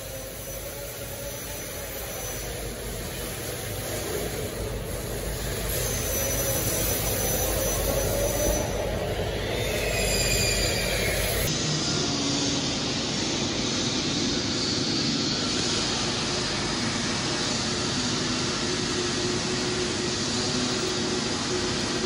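Steady mechanical noise, a hiss with a low hum under it. It grows louder over the first several seconds and changes in tone about halfway through.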